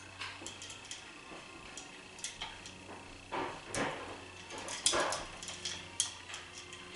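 Yellow-naped Amazon parrot bathing in a small water cup: scattered sharp clicks and taps, with two short splashes about three and a half and five seconds in, the second the loudest.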